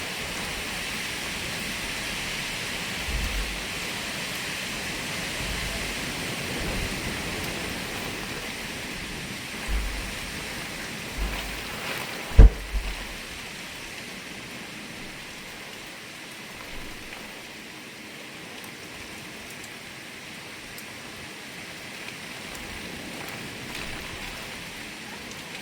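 Steady rain hissing, with brief low gusts of wind buffeting the microphone and a single sharp knock about halfway through.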